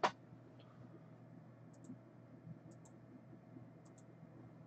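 Three faint double clicks about a second apart over a quiet, steady low hum.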